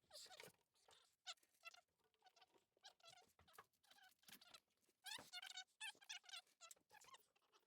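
Faint, irregular run of short squeaks, with quiet gaps between them, from sound-deadening mat being pressed onto the van's bare metal panel.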